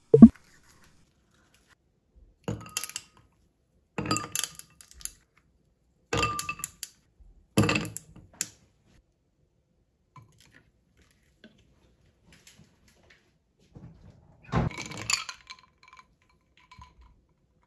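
Ice cubes and a spoon clinking against a glass tumbler in five short bursts, with a hard knock right at the start.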